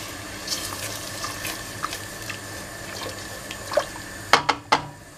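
Cilantro sofrito thinned with water simmering and sizzling in a stainless steel pot over raised heat, stirred with a wooden spoon: a steady watery hiss with small ticks. A few sharp clicks come near the end.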